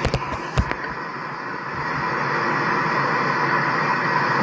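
Steady rushing road noise of a vehicle passing on the road, slowly growing louder toward the end, after a few short knocks in the first second.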